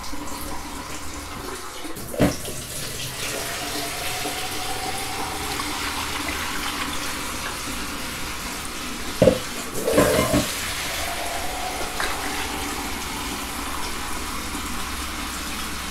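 Water running steadily, with brief knocks about two seconds in and again near the middle; near the end it is poured from a plastic jug into a metal roasting tray.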